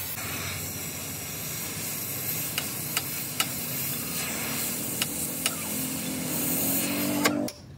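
Oxy-fuel cutting torch hissing steadily as it cuts into the grader's steel center pin, with sharp pops from the molten metal and sparks. The hiss stops suddenly near the end.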